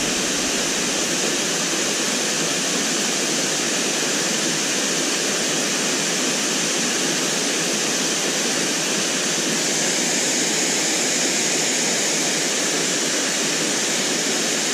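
Berry Creek Falls, a waterfall, pouring steadily into the pool at its foot: an even, unbroken rush of falling water.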